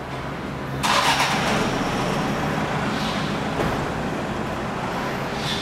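Motor vehicle running in the car park: a steady low engine hum, with a sudden rush of noise about a second in that fades slowly.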